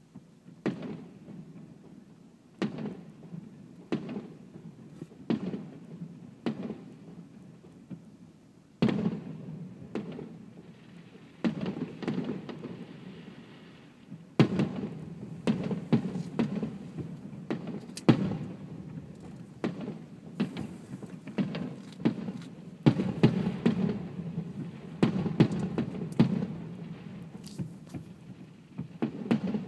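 Aerial firework shells bursting in a string of sharp bangs, each trailing off in an echoing rumble. They come about one every second or so at first, then thicker and faster from about halfway through.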